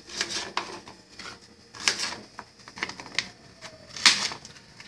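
Knife chopping garlic cloves on a plastic cutting board: irregular sharp taps of the blade striking the board, the loudest one near the end.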